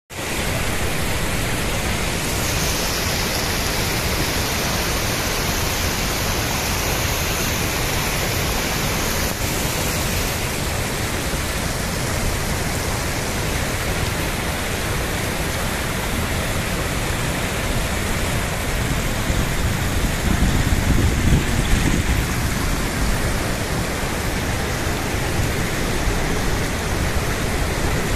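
Steady rush of flowing water: hot spring water gushing on its own from a broken supply pipe and splashing down over iron-stained rocks, blended with a river's rapids.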